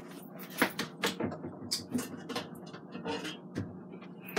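Irregular light clicks and clanks of cookware being handled, as a stainless pot lid is fetched.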